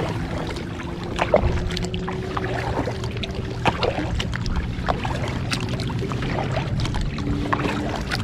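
Kayak paddling on open water: paddle blades dip and splash every second or two over steady water noise and a low rumble.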